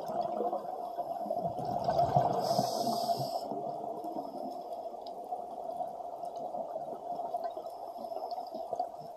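Underwater ambience heard through a waterproof camera housing: scuba divers' regulator exhaust bubbles gurgling over a steady muffled hum, with a louder bubbling rush about two to three seconds in.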